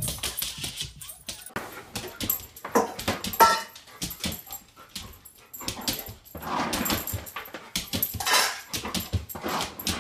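A dog making short whining and yipping sounds among scattered knocks and clicks.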